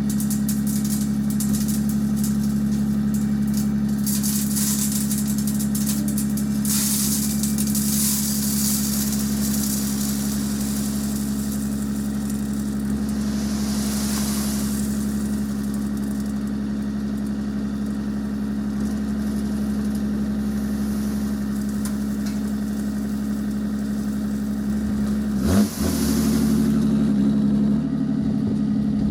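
Heavy-equipment engine running at a steady speed, with stretches of rushing noise over it and a brief swing in engine pitch about 25 seconds in.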